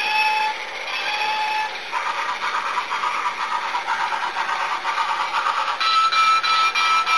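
Motorised musical toy roller coaster (Mr. Christmas style) running: a steady rattling clatter of the cars and track, with a tinkly melody of held notes over it that grows louder about six seconds in.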